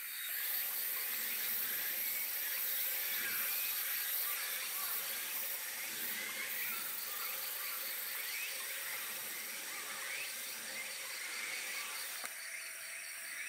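Outdoor park ambience: a steady high-pitched hiss, like insects, with many faint short chirps scattered through it.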